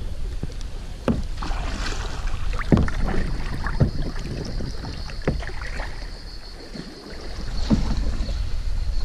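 Kayak paddles dipping and splashing in slow river water, several separate strokes at irregular intervals, over a steady low rumble of wind on the camera microphone.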